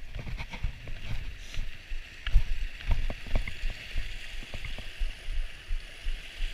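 Steady rush of a flowing mountain creek, with irregular low thumps of footsteps close by.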